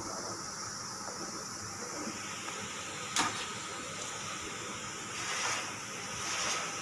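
A knife scraping and smoothing whipped cream: a sharp click about three seconds in, then two soft scraping hisses near the end as cream is scooped from the bowl and spread on the cake, over a steady background hiss.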